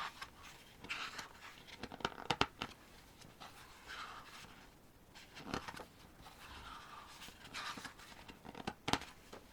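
Photobook pages being turned and handled: soft paper rustles with a few sharp taps about two seconds in and a louder click near the end.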